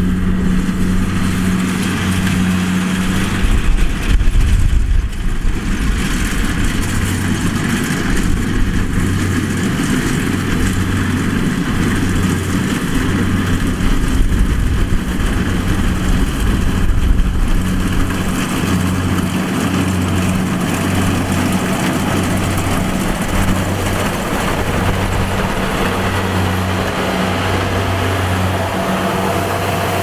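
Kubota DC-70 rice combine harvester working as it cuts and threshes rice: its diesel engine runs with a steady low hum under a broad, even mechanical noise from the machine.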